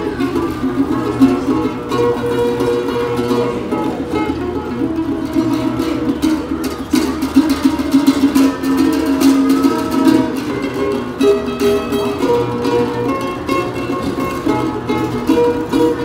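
Acoustic guitar played solo: a steady run of plucked melody notes over low bass notes, with no breaks.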